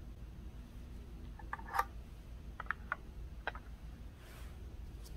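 A few light plastic clicks and taps of a polystyrene cuvette being handled and set into a plastic cuvette rack, with a brief soft rustle near the end.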